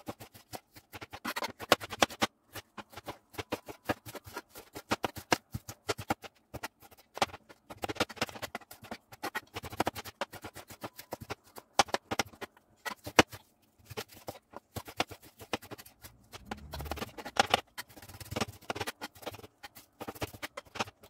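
Chef's knife dicing a red onion on a plastic cutting board: a quick, uneven run of knife taps against the board, several a second, broken by short pauses.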